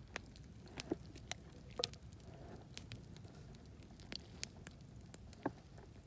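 Quiet, wet squishing and scattered sharp clicks as raw, herb-rubbed whole chickens are handled and pushed onto a wooden skewer. There are about a dozen clicks at uneven intervals over a faint low background rumble.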